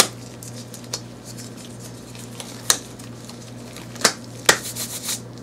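Nitrile gloves being pulled and worked on the hands: a few sharp snaps and rubbery clicks, the loudest about four and four and a half seconds in, over a low steady hum.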